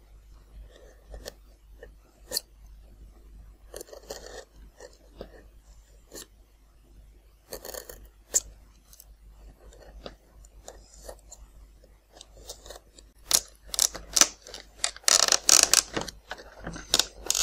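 Hobby knife blade cutting and scraping a slot into a painted foam rudder, in short scratchy strokes and clicks. Near the end, louder rapid crackling and creaking as a plastic control horn is pushed tightly into the foam slot.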